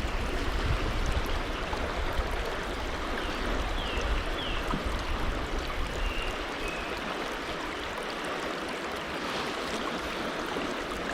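Mountain river water rushing steadily, with a low rumble in the first half and a few short high chirps in the middle.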